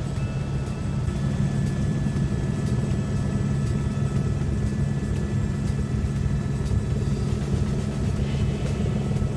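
Helicopter heard from inside the cabin in flight: a steady engine and rotor drone with a thin, steady turbine whine above it.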